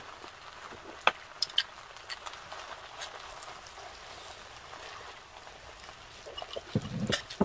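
Rice, beef and corn sizzling with a steady hiss in a hot pot on a tabletop burner. A couple of sharp utensil clicks come about a second in, and near the end a wooden spatula scrapes and knocks the pot as rice is scooped out.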